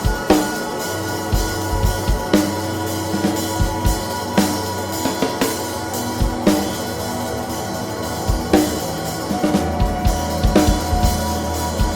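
Drum kit played freely over a sustained ambient soundscape drone, with scattered bass drum and snare hits that grow busier about ten seconds in.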